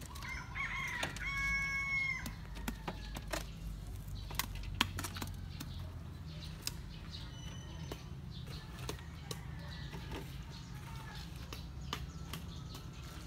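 A rooster crowing once, about half a second in, ending on a long held note. Scattered sharp clicks and knocks and a steady low hum run under it.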